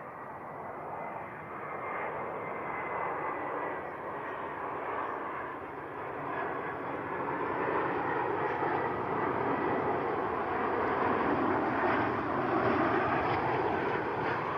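Boeing 717's twin rear-mounted Rolls-Royce BR715 turbofans running on landing approach, a steady jet roar that grows louder as the airliner comes in. A faint high whine sits in the first few seconds.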